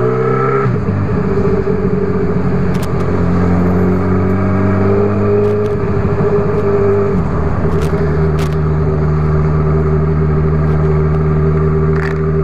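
Honda CB1000R's inline-four engine running at a steady cruise under way, with rushing wind noise. The engine note drops a step about seven seconds in and then holds steady again.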